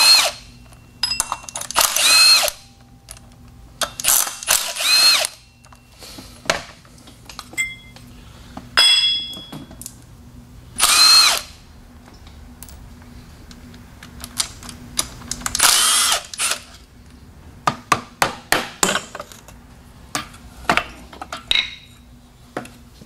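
A cordless power tool spinning up and back down in short bursts of about a second, several times over, backing bolts out of an engine's water pump. Near the end comes a run of quick clicks.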